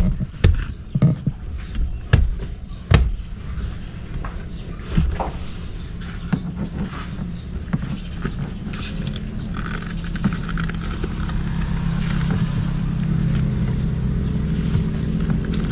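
A few sharp knocks and clicks in the first three seconds, then a motor vehicle's engine running steadily, its hum building gradually louder.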